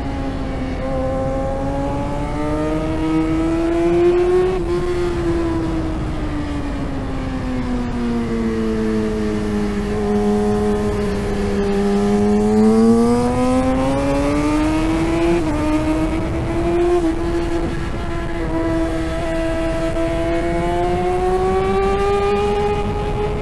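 2017 Yamaha R6's 600 cc inline-four engine at racing revs, heard on board: the pitch climbs, sinks slowly for several seconds, then climbs again, with quick jumps in pitch about four seconds in and past the middle as gears change.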